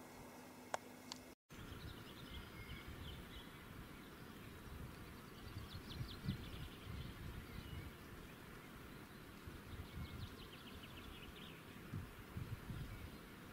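Faint meadow ambience: three or four short runs of quick, high chirps, with low rumbling wind on the microphone.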